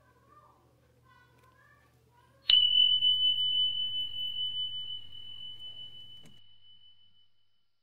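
A bell-ding sound effect: one clear high tone that strikes suddenly and rings out, fading over about five seconds. A short mouse-click sound comes near the end, and faint gliding sounds come before the ding.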